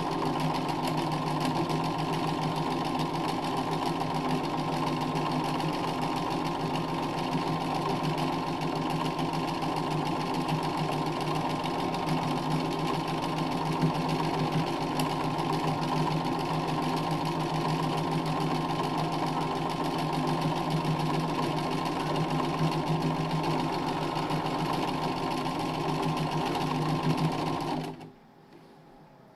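Domestic sewing machine running at a steady speed, stitching free-motion embroidery through a free-motion presser foot. It stops suddenly shortly before the end.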